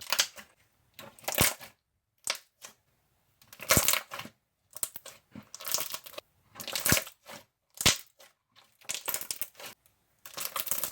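Clicky clear slime being squeezed, stretched and poked, giving crackling clicks and sharp bubble pops in bursts about once a second.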